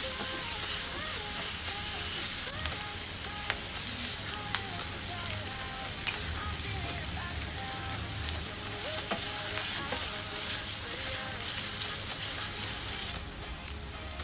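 Diced onions and garlic sizzling steadily in butter and oil in a frying pan, stirred now and then with a wooden spatula that gives a few light taps. The sizzle is a little quieter near the end.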